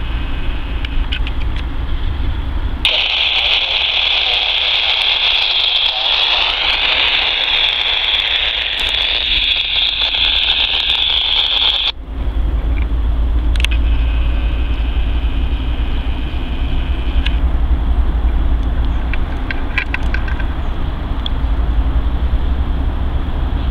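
Diesel freight locomotives idling with a steady low rumble. Over it a loud high hiss runs for several seconds and cuts off abruptly about twelve seconds in.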